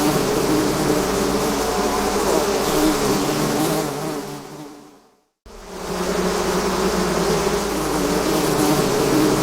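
A swarm of bees buzzing: a dense, steady drone of many wings. About halfway through it fades out to a moment of silence, then starts again abruptly at full strength.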